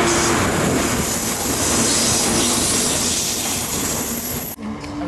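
Freight train of hopper wagons rolling past at speed behind a Class 66 diesel locomotive: a loud, steady rush of wheels on rail with a thin high whine over it. It cuts off abruptly about four and a half seconds in.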